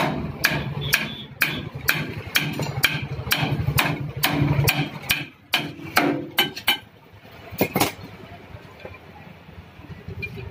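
Hand hammer striking the metal rear wheel hub and brake housing of a Massey Ferguson 241 tractor, about two ringing blows a second for some eight seconds before stopping, over a low steady hum.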